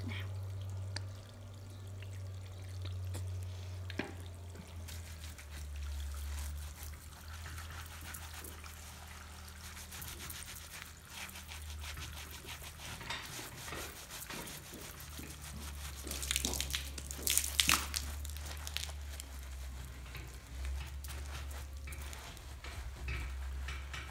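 Wet squelching and squishing of hands working shampoo lather into a horse's soaked tail hair, with drips of water and a steady low hum underneath. The loudest squelches come about two-thirds of the way through.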